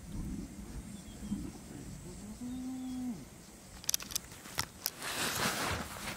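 Spotted hyena giving one low moaning call that rises, holds and drops away over about a second. It is followed by a few sharp clicks and a short rush of noise near the end.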